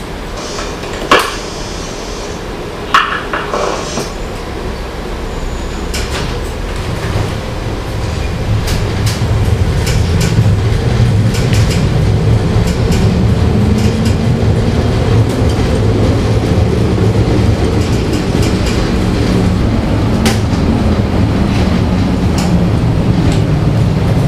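Stockholm Spårvägar A31 tram 333 pulling away from inside the car: two sharp knocks with a short ring in the first few seconds, then the traction motors' hum rising in pitch as it gathers speed, with wheels clicking over the rails and the wooden body rattling, growing louder.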